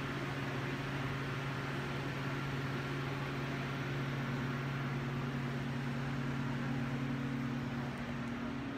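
Electric commuter train standing at the platform with its doors open, its onboard equipment humming steadily. The lower part of the hum stops about eight seconds in.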